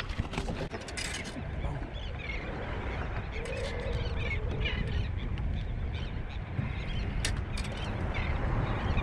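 Steady wind and water noise, with short bird calls coming through now and then and a few sharp clicks.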